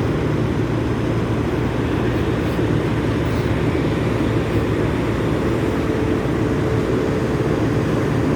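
Large truck engine running with a steady low rumble.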